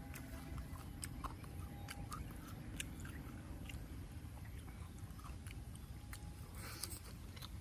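A person chewing food with the mouth closed, with scattered small wet clicks over a steady low background hum.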